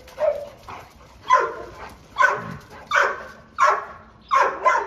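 A dog barking over and over, about seven barks spaced a little under a second apart.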